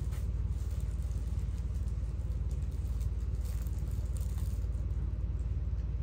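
A steady low rumble, with faint rustling and light clatter scattered through it, as a rug or its packaging is handled.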